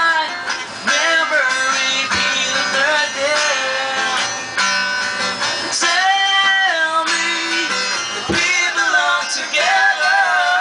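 A man singing a song to his own acoustic guitar accompaniment, a second singer at a microphone beside him.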